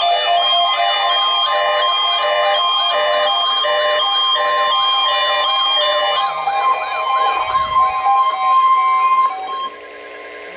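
Layered electronic siren and alarm tones: fast swooping yelp-like sweeps, a high two-note hi-lo alternation, and a steady tone near 1 kHz, all sounding together. About six seconds in the pattern breaks up, and after about nine and a half seconds it drops to a much quieter steady tone.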